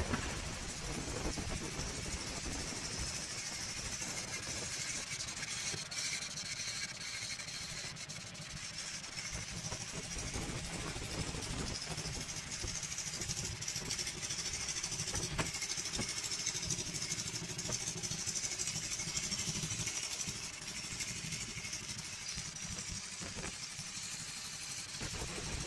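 Kawasaki Vulcan S's 649 cc parallel-twin engine idling steadily.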